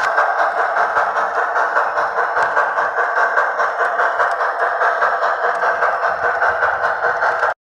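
Soundtraxx Tsunami2 sound decoder in an HO scale New York Central H-10 Mikado model, playing steady, rapid steam-exhaust chuffs through the locomotive's speaker. It cuts off abruptly near the end.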